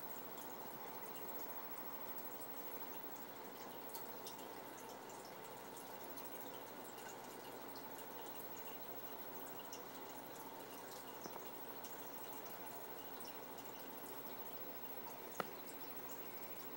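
Steady trickle of aquarium water with faint scattered drips, and one sharp click about fifteen seconds in.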